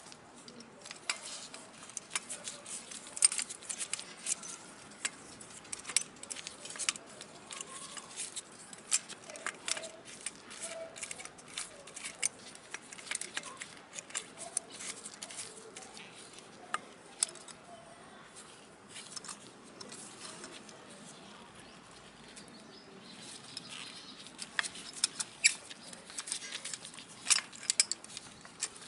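Irregular small clicks, taps and light metallic clinks of hand tools and rear brake parts being handled on a scooter, with a few sharper clicks. The clicks thin out briefly past the middle.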